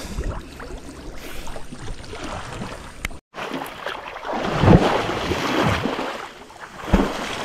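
Water sloshing against a small boat, with irregular knocks and splashes and wind buffeting the microphone. The sound cuts out completely for a moment about three seconds in.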